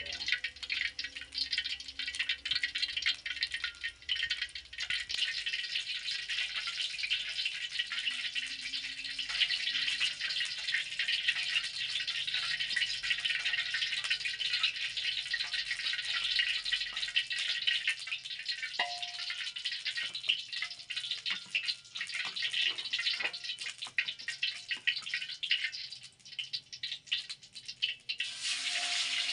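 Cooking oil heating in an aluminium wok on a gas stove, crackling and spitting steadily. Near the end a fish steak is lowered in, and the oil breaks into a denser, louder frying sizzle.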